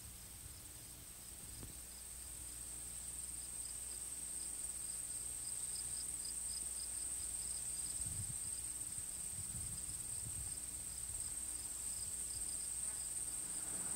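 Faint steady high-pitched whine with a fainter rapid ticking, over a low electrical hum, slowly getting louder.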